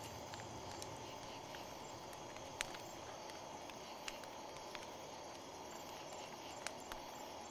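Quiet outdoor night ambience: a steady low hiss with insects, such as crickets, chirping faintly. A few sharp single clicks stand out, the clearest about two and a half, four and six and a half seconds in.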